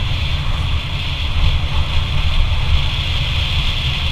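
Motorcycle riding along a road: the engine running steadily under a choppy rumble of wind buffeting the microphone, with a steady hiss above it.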